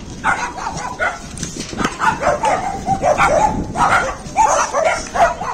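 Small dogs barking and yapping over and over, a quick, dense run of high yips.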